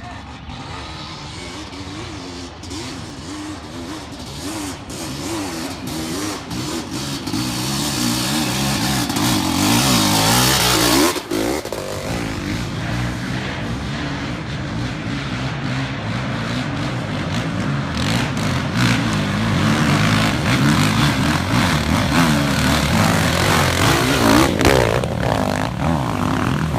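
Off-road vehicle engine revving hard and unevenly under load as it climbs a steep hill, getting louder as it comes closer, with a brief drop in revs about eleven seconds in.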